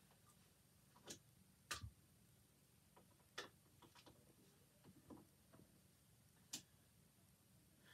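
Near silence with about six faint, sharp clicks and taps scattered irregularly, the clearest a little under two seconds in and again near the end.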